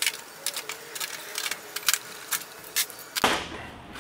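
Sharp, irregular clicks of spring clecos being released and pulled out of drilled holes in a fiberglass fender flare, a few a second, with a louder knock about three seconds in.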